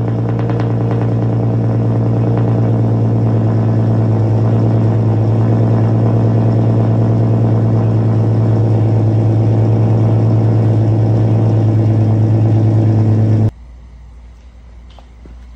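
Infiniti M37x's 3.7-litre V6, straight-piped with catless downpipes and no muffler or resonators, idling loud and steady at the tailpipes. It cuts off abruptly near the end, leaving faint background sound with a few light clicks.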